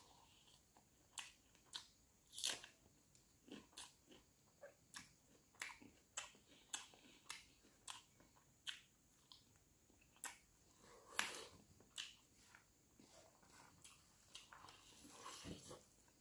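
Close-up mouth sounds of a person eating rice and broiler chicken liver by hand: irregular sharp bites and crunches between softer chewing, with a longer rustling stretch about eleven seconds in and again near the end.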